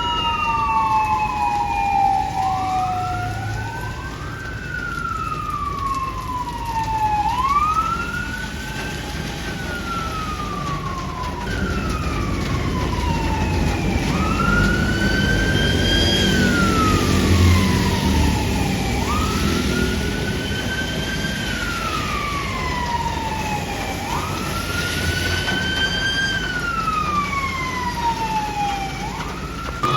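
Fire service emergency vehicles' sirens sounding a slow wail: each cycle jumps up quickly and falls away over about three seconds, roughly once every four seconds, with two sirens out of step at first. A heavy vehicle's engine rumble grows louder about halfway through.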